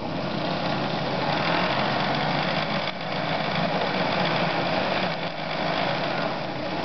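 Podolsk 142M sewing machine's belt-driven electric motor running steadily while winding thread onto a bobbin. The handwheel clutch is loosened, so only the bobbin winder turns and the needle mechanism stays still.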